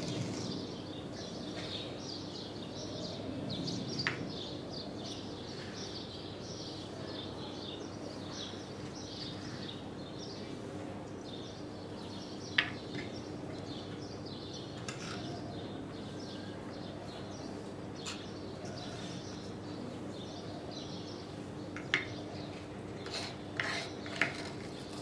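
A few light, sharp clinks and taps of a small spoon against a ceramic bowl and of small scoops on a wooden spice tray while a marinade is mixed, spread out over a steady low hum.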